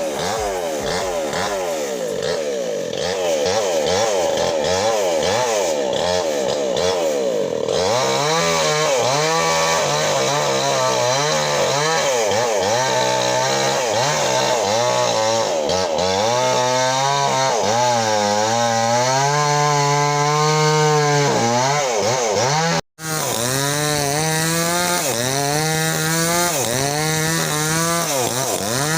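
Mini chainsaw running and cutting through an oil palm trunk, its pitch rising and falling over and over as it bogs under load and picks up again. The sound cuts out for an instant about two-thirds of the way through.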